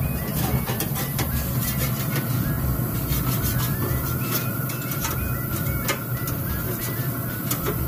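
Metal tongs and a spatula clicking and scraping on a pellet smoker's grill grates, with scattered sharp clicks over a steady low mechanical hum.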